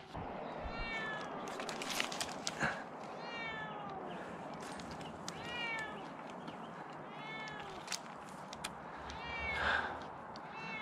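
A cat stranded high in a tree meowing over and over, about five calls a couple of seconds apart, with scattered light knocks and rustles in between.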